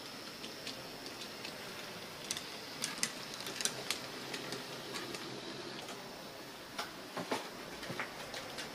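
HO scale model trams running on their track: a steady faint whir under irregular sharp clicks of the wheels over rail joints and points.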